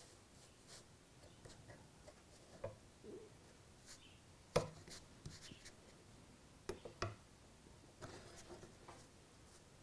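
Quiet handling sounds: a steel rule and a length of model railway track are set down and slid on foam track bed, giving a few light clicks and taps, the sharpest about halfway through, and a short soft rubbing near the end.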